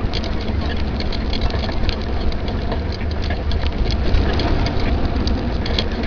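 Steady low rumble of wind buffeting the microphone while riding along a paved trail, with many small clicks and rattles on top.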